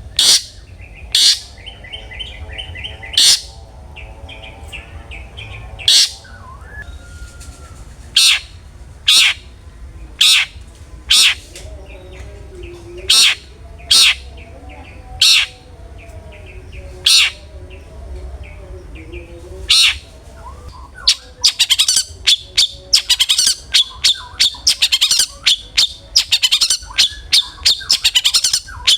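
Long-tailed shrike (cendet) singing loud, sharp single notes about one a second over soft warbling. Near the end the notes speed up into a rapid chattering run.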